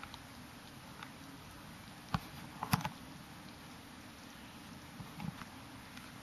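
A dog chewing on something held between its front paws: mostly quiet, with a few short sharp clicks about two seconds in and again just under a second later.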